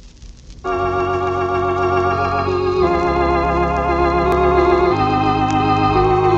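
Faint record surface noise, then under a second in an organ comes in with the introduction to a gospel song, holding sustained chords that change every second or two. A couple of single record clicks sound over the organ.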